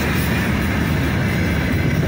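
Freight train gondola wagons rolling past close by: a steady, loud rumble of steel wheels on the rails.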